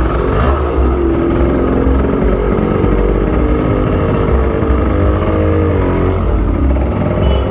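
Yamaha RX-135 two-stroke single-cylinder engine running loud at low road speed, the revs rising and falling twice as the throttle is worked.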